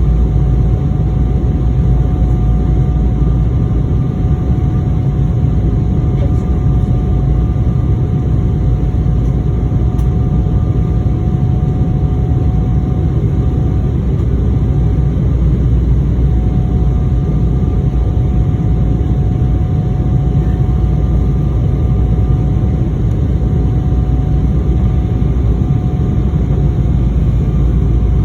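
Airliner cabin noise in flight: a loud, steady low rumble of engines and airflow, with a faint steady whine above it.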